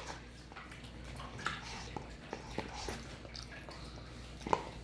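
Close-up mouth sounds of a person chewing a forkful of mac and cheese: soft wet smacks and small clicks, with a sharper click near the end.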